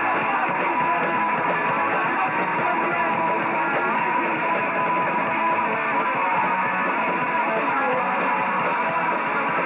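Punk rock band playing live, electric guitars strummed hard in a steady, dense wall of sound; it sounds thin and muffled, with little bass or treble, as on an old camcorder recording.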